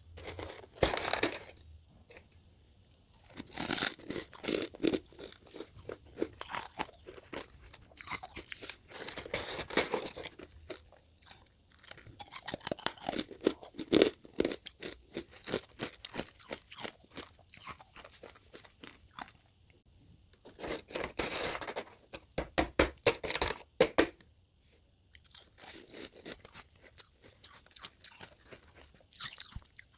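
Freezer frost being bitten and chewed, in bursts of crisp crunching separated by short pauses.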